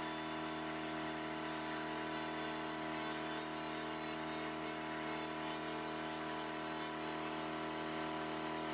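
Handheld pulsed laser cleaner running as it strips rust from steel: a steady buzzing hum with an even hiss over it.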